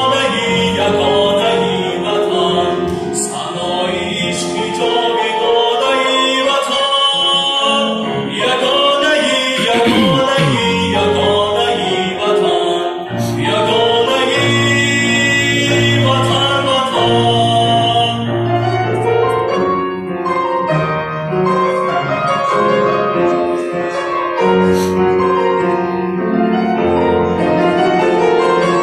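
A young man singing a song with grand piano accompaniment, holding long notes over the piano.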